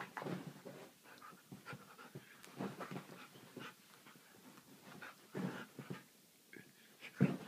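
A husky panting in irregular bursts while it play-fights with a cat, with scuffling of paws and bodies on a couch; a sharp, louder noise stands out near the end.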